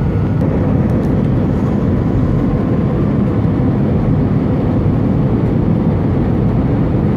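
Steady cabin noise inside an Airbus A320 airliner in flight: a loud, even rumble of engines and airflow, with a faint steady hum over it.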